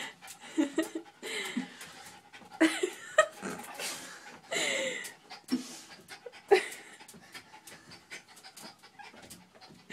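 Jack Russell terrier panting hard in excitement over his toy, with scattered sharp clicks.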